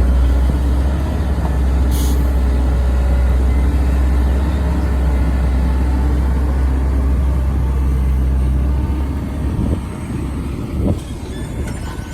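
Heavy diesel engine running with a steady low rumble. There is a short hiss about two seconds in. The engine eases off about three-quarters of the way through, followed by a few sharp knocks.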